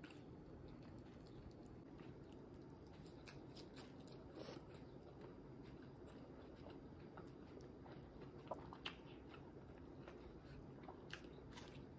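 Faint chewing of a mouthful of fried egg, with scattered soft wet mouth clicks, a few of them a little louder past the middle.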